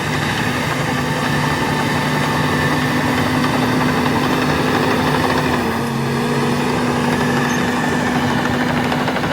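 Bulldozer diesel engine running steadily under work, its pitch dropping slightly a little over halfway through.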